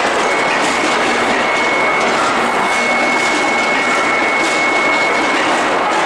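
Medium-frequency induction heating furnace running on a factory floor: a loud, steady roar of machinery noise with a constant high-pitched whine.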